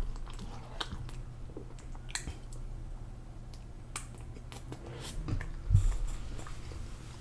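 Person chewing a mouthful of food close to the microphone, with wet smacking and small clicks. A dull thump about six seconds in.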